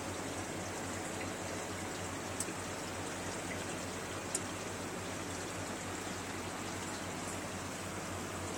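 Aquarium air bubbler stream running: steady bubbling water noise with a low steady hum underneath. Two brief clicks about two and four seconds in.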